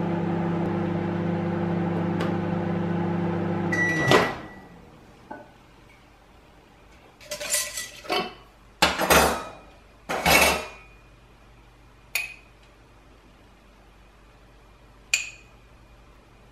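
Microwave oven running with a steady hum that stops abruptly about four seconds in, with a short beep and a click. Then a few separate clinks and knocks follow: a glass jar, its lid and a spoon against a glass bowl.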